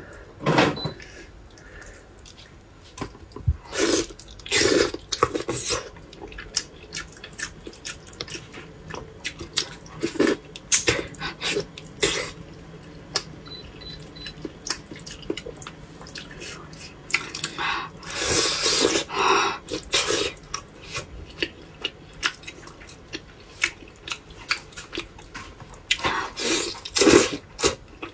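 Close-miked eating sounds of braised pork knuckle being torn apart by hand and chewed: many short mouth clicks, with clusters of louder noisy bursts and a longer noisy stretch about two-thirds of the way through.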